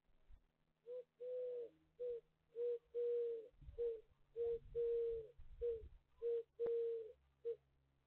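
Eurasian collared dove calling: a three-note coo-COO-coo, the middle note held longest, repeated four times in a steady rhythm.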